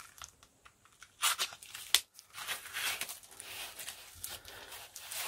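Plastic packaging crinkling and tearing in short, irregular bursts as the replacement FEP film is unwrapped by gloved hands, with a sharp click about two seconds in.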